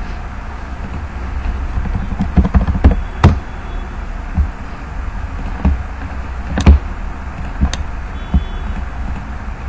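Several sharp, scattered clicks of a computer mouse and keyboard over a steady low hum of microphone and room noise.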